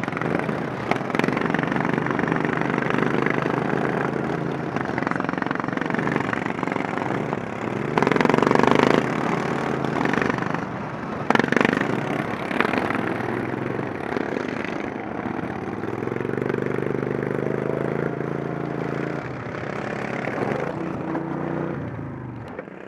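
Racing lawn mower engines running hard, heard from the rider's seat, the pitch rising and falling as the mower speeds up and slows through the turns, with other racing mowers nearby. A louder rush of noise comes about a third of the way in, and the engine eases off near the end.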